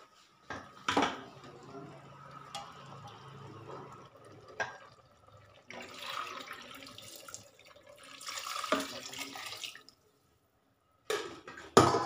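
Masala water poured from a steel mixer jar into a steel pressure cooker of rice, splashing in two pours in the middle. Sharp metal knocks about a second in and just before the end, the later one the loudest.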